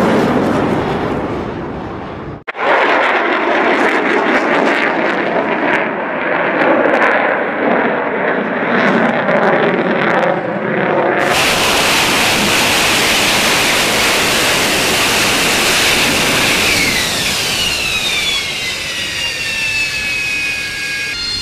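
Military jet engines in three back-to-back clips: a jet roar that cuts off about two and a half seconds in, a second roar from a fighter jet, then from about eleven seconds in an AV-8B Harrier's engine on a ship's deck. The Harrier's engine has a bright hiss and several high whines that slide down in pitch toward the end.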